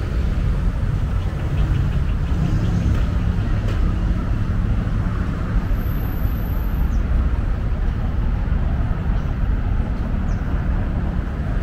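Steady low rumble of city outdoor ambience, an even roar with no distinct events.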